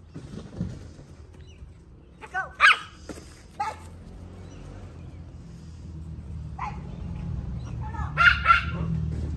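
Small dogs barking in short bursts of sharp yaps: a cluster about two to four seconds in and another around eight seconds in, over a low rumble that grows toward the end.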